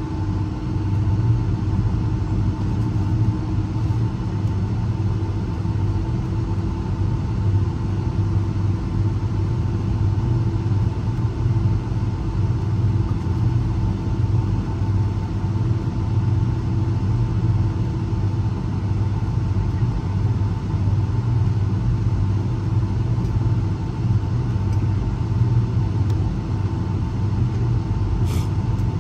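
Steady engine and cabin noise inside a Boeing 757 airliner: a low rumble with two constant hums, the engines holding a steady setting with no spool-up.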